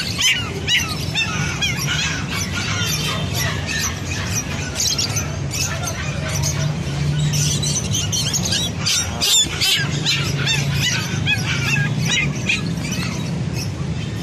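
Many small birds chirping at once, in quick, high, overlapping calls that are thickest near the start and again about nine seconds in, over a steady low hum.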